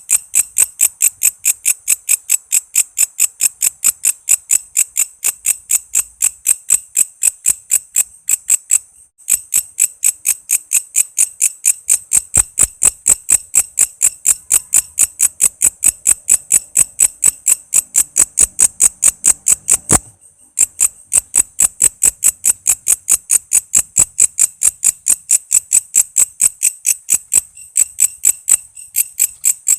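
Walang kece insect calling: a steady, rapid train of sharp, high-pitched pulses, about four a second, that breaks off briefly twice.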